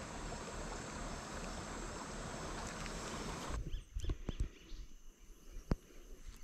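Steady rush of a shallow river flowing over rocks. About three and a half seconds in it gives way to a quieter outdoor background: a thin, high insect drone and a few faint knocks.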